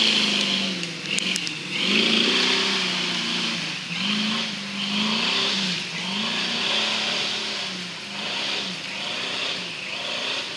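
Off-road 4x4's engine revved again and again, each rev rising and falling in pitch about every second or two, with a rushing hiss that swells with each rev.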